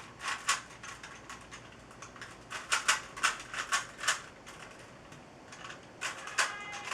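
Rubik's Cube being turned quickly by hand during a speed solve: plastic layers clicking and clattering in quick irregular runs, with short pauses between them.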